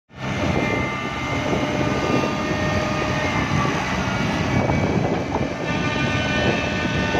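Tracked excavator's diesel engine running steadily while its boom and arm are worked, a rough rumble with faint steady high tones over it.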